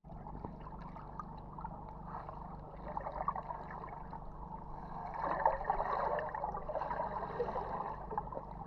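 Water moving underwater in a swimming pool, heard through the submerged camera as a muffled, crackly gurgle with bubbling. It swells louder about halfway through.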